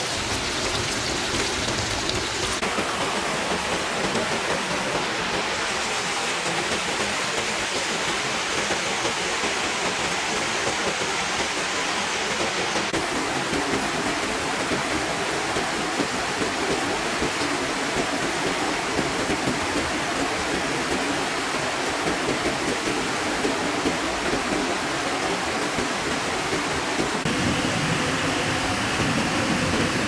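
Steady rush of water running over rocks, an even hiss with no breaks whose tone changes slightly a few times.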